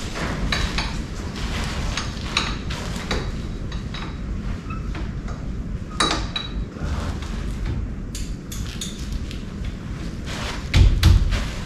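Metal hand tools clinking and tapping against a car's front wheel hub: a string of irregular sharp metallic clicks, some briefly ringing, with a couple of heavier thuds near the end.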